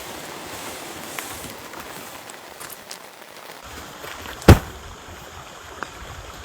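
Steady patter of rain with a few faint drips, and one sharp, loud knock about four and a half seconds in.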